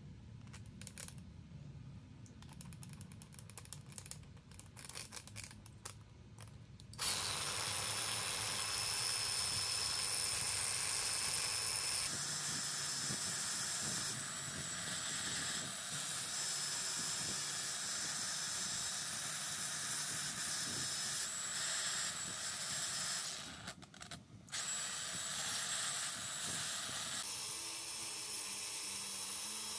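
A few light clicks and rattles of handling metal parts, then a cordless angle grinder switches on about a quarter of the way in and runs loud and steady. It cuts out for about a second near the last fifth and starts again, running a little quieter near the end.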